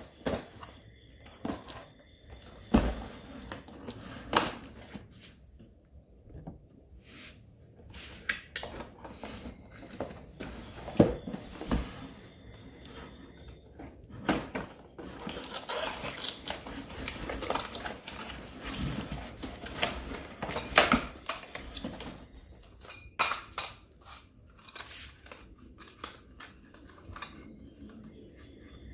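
Unpacking a boxed air compressor and nail gun kit by hand: packaging rustling and tearing, with scattered clicks and knocks of parts being handled and set down.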